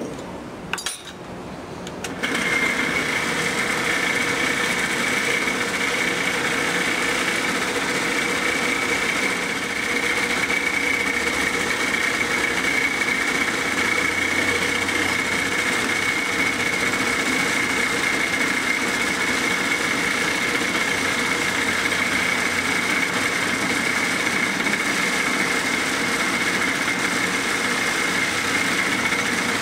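An electric shop machine running steadily, with a constant high whine over a broad hum. It starts abruptly about two seconds in, after a brief quieter sound.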